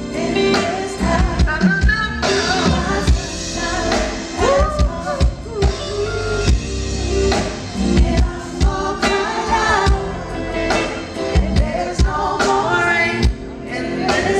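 Live R&B/soul band playing, with drums, bass and keyboards, under a woman singing into a handheld microphone, her voice sliding between notes in gospel-style runs.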